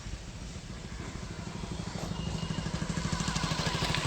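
An engine running with a fast, even pulse that grows steadily louder.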